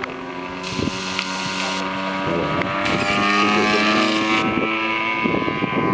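Engine of a large radio-controlled P-51D Mustang scale model running at high power for its takeoff run across the grass, getting louder over the first few seconds.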